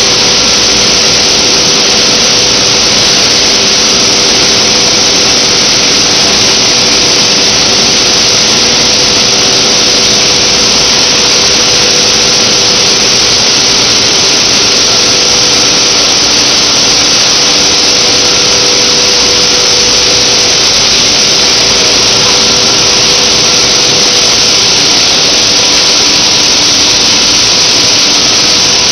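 Steady machinery noise of a PET bottle washing line: motors and gearboxes running under a loud, constant hiss, with a few steady humming tones.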